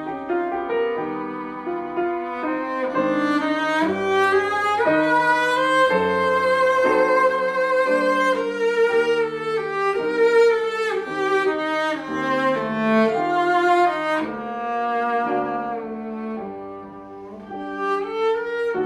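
Cello and grand piano playing classical music together: the cello bows a sustained melody over piano chords. The playing softens briefly near the end, then swells again.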